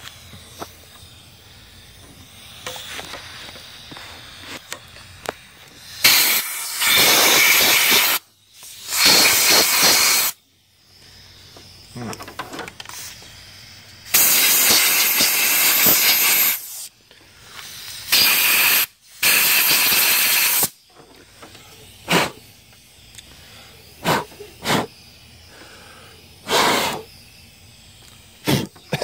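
Compressed-air blow gun firing repeated blasts into the glow plug wells of a diesel cylinder head, clearing out sand and dust before the glow plugs are removed. It gives five long hissing blasts of one to two and a half seconds each, then a few short puffs near the end.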